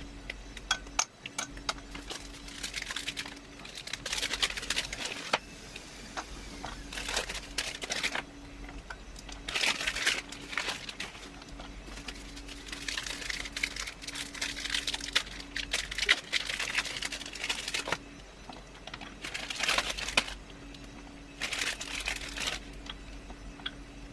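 Plastic wrappers of Milky Bar white chocolate crinkling in repeated bouts as the bars are unwrapped and handled, with scattered light clicks and snaps between.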